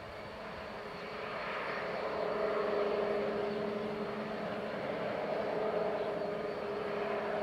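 2TE116 twin-section diesel locomotive's V16 diesel engines working under load, a steady droning hum with a few held tones, hauling a loaded coal train. It swells a little over the first two to three seconds, then holds.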